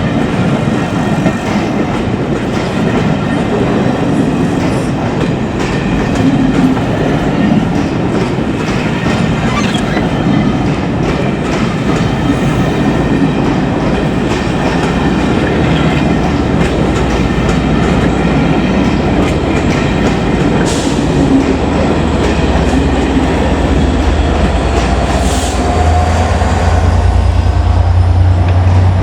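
Train of Pullman carriages rolling past, wheels clattering over rail joints with occasional faint wheel squeal. A deeper diesel engine drone builds over the last several seconds as the class 67 diesel locomotive on the rear comes by.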